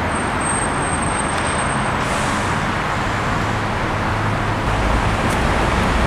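Steady road traffic noise, with a deeper low rumble building about four and a half seconds in. A faint thin high tone sits above it for the first two seconds.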